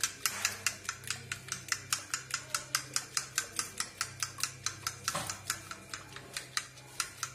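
Metal fork beating cream by hand in a ceramic bowl, clicking against the bowl in a rapid, even rhythm of about five or six strokes a second over a steady low hum: cream being whipped until it stiffens.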